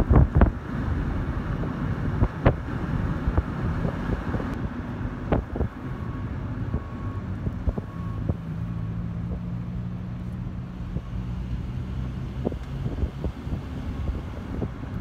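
Road noise from a car driving along a highway, a steady rush with wind buffeting the microphone, heaviest in the first second. About halfway through, a low steady hum joins for a few seconds.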